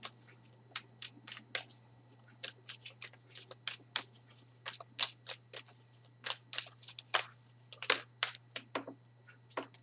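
A tarot deck shuffled by hand: an irregular run of quick card clicks and slaps, a few a second.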